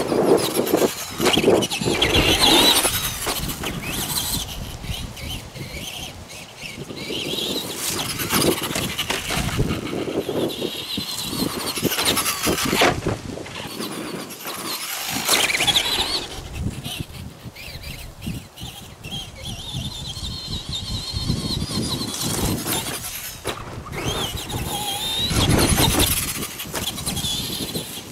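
Traxxas Bigfoot RC monster truck's electric motor and drivetrain whining in repeated surges, rising and falling in pitch as the truck speeds up and slows, with the noise of the tyres running over dirt and grass.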